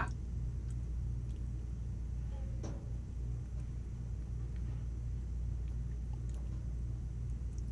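Steady low hum with faint hiss, and one faint click about two and a half seconds in.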